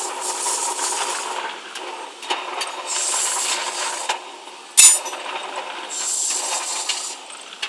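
Steel rebar machine at work: three harsh rushing stretches of about a second each, roughly three seconds apart, over a steady motor hum, with a single sharp metallic clank about five seconds in, the loudest sound.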